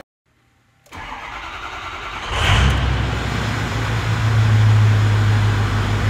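Ford 6.0L Powerstroke V8 diesel cranking briefly, then catching about two seconds in and settling into a steady idle. The no-start is cured now that the damaged injection pressure regulator (IPR) valve has been replaced.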